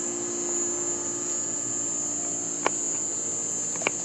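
Crickets chirping in one steady, high, continuous trill, with two short sharp clicks, one past the middle and one near the end.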